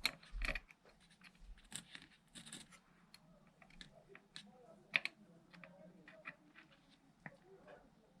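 Scattered light clicks and scrapes of small objects being handled, with the sharpest click about five seconds in.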